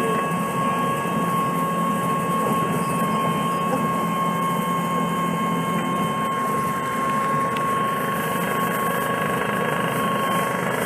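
2006 Orion VII CNG transit bus idling at a stop, its Cummins C Gas Plus inline-six natural-gas engine running steadily with a thin steady high whine over the engine hum.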